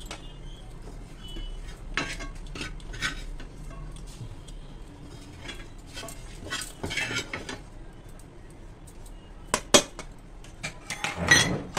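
Steel spoon scraping around a frying pan and knocking against a steel plate while scooping out a thick, sticky cooked mixture: irregular scrapes and clinks, with two sharp clinks close together about ten seconds in and a louder burst of clattering near the end.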